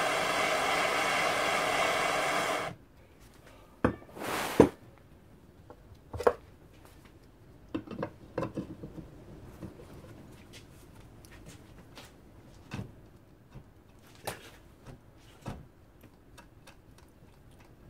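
Gas blowtorch burning with a steady hiss, shut off suddenly a little under three seconds in. Then a sharp metallic knock and scattered clicks and taps of steel pliers gripping and working a heated, seized motorcycle footrest pivot.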